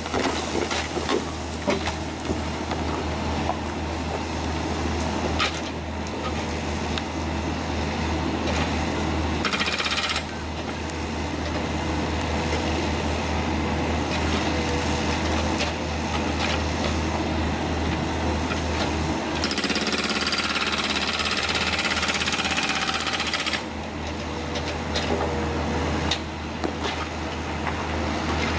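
Heavy excavator at work: a steady low diesel drone under continuous rapid clattering and rattling. The sound changes abruptly a few times, as between separate clips.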